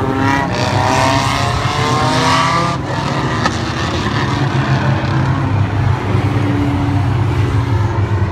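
Engines of a field of Thunderstock stock cars racing on an oval: one car's engine rises in pitch as it accelerates over the first few seconds, over the steady drone of the rest of the pack.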